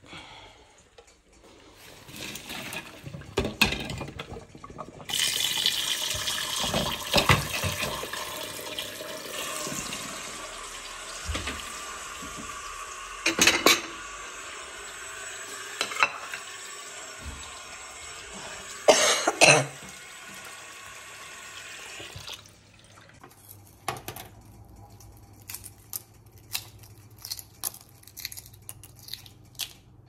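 Kitchen tap running into a stainless-steel sink for about seventeen seconds while a china plate and dishes clatter against each other, with a few louder clanks. After the water stops, small dry cracks and crackles of a boiled egg's shell being peeled.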